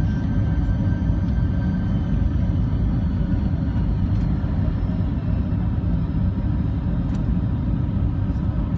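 Steady low rumble of a Boeing 747SP's engines and airflow heard inside the cabin from a window seat over the wing, with a faint steady whine above it, on final approach just before touchdown.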